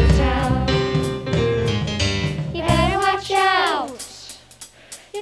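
Singing with instrumental accompaniment and bass. The accompaniment stops about three seconds in as a sung note slides down in pitch, followed by a short, quieter lull.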